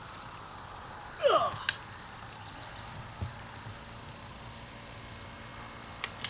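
Steady chirping of insects, crickets by their sound, in a high even pulsing chorus. A short falling voice-like sound comes about a second in, followed by a single sharp click; a dull thud and a couple of light clicks come later.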